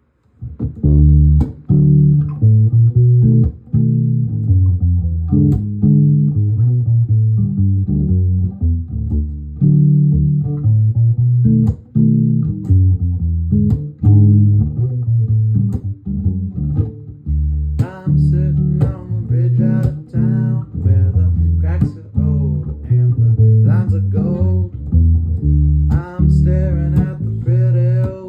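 Music: a plucked bass guitar line of short notes, with a higher, wavering melody joining about two-thirds of the way through.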